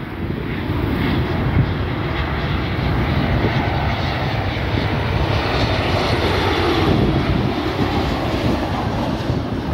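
Jet engines of a WestJet Boeing 737 on final approach with landing gear down, a steady rushing drone that grows louder over the first few seconds as the airliner comes in low.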